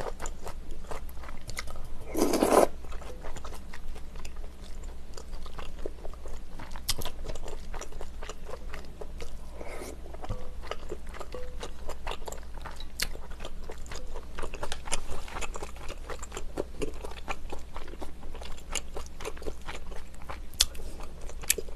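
Close-miked eating sounds: a person chewing soft rice cakes, beef and noodles from rice cake soup, with many small wet mouth clicks. There is a louder sip of broth from a spoon about two seconds in.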